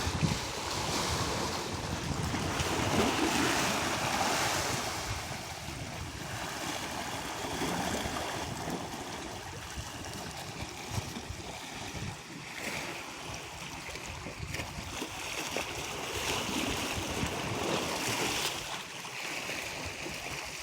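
Sea waves washing against shore rocks, rising and falling in slow swells, with wind buffeting the microphone.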